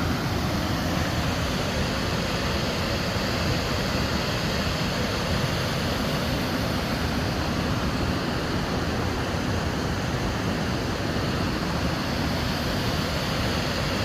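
Waterfall's rushing water: a steady, unbroken rush.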